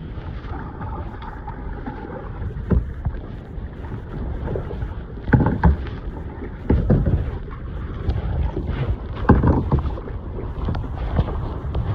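Kayak paddle blades splashing into the sea every second or two, against a steady rumble of wind buffeting the microphone.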